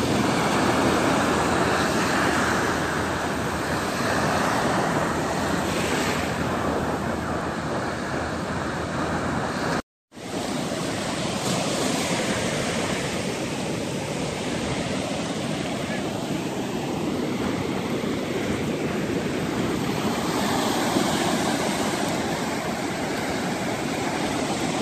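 Gulf of Mexico surf breaking and washing up over a sandy beach at the water's edge, a steady wash of waves. The sound cuts out for a split second about ten seconds in.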